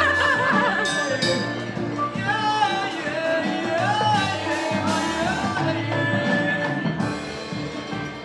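Music with a singing voice over steady low instrumental notes.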